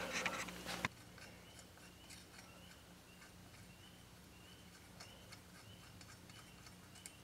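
Faint small metallic clicks of clutch parts being handled by hand, with a faint high chirp repeating a little over twice a second in the background.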